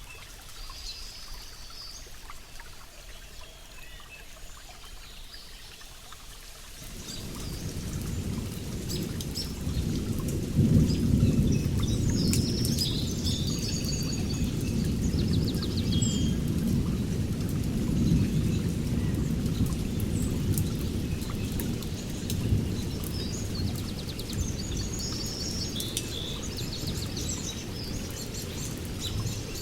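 Rain falling through a forest with birds chirping. About seven seconds in, a long low rumble of thunder rolls in, loudest a few seconds later and carrying on under the rain and birdsong.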